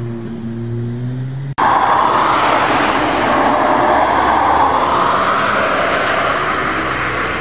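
Ferrari 296 GTB's twin-turbo V6 running at low, steady revs. About a second and a half in, an abrupt cut gives way to the engine running much louder and harder, a dense roar whose pitch dips and then climbs again.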